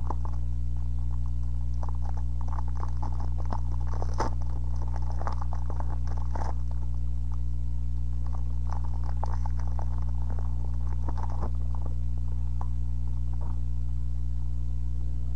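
Pokémon booster pack foil wrapper crinkling and trading cards being handled, a run of small crackles and rustles that thins out near the end, over a steady low electrical hum.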